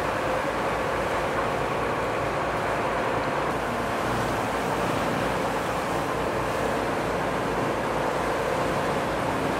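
A tour boat's engine running steadily, a constant hum with no change in pace.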